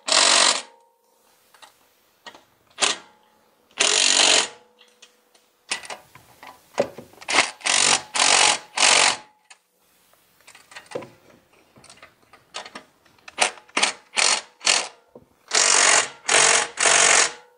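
Cordless electric ratchet run in a string of short bursts, each half a second to a second long, with small clicks between them. It is tightening the nuts that draw the catalytic converter up to the exhaust manifold.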